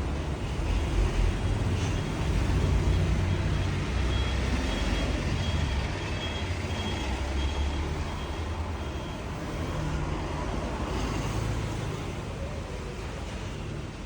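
Steady rumble of vehicle traffic, with a faint intermittent high beep in the middle.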